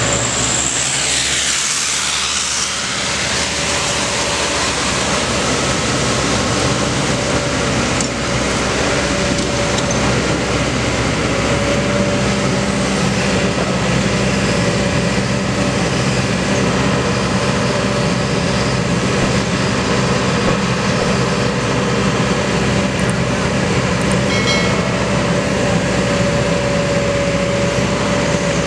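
Kobelco SK200 hydraulic excavator's diesel engine running steadily under load as its bucket digs asphalt out of a dump truck's bed, with a steady hum over the engine noise.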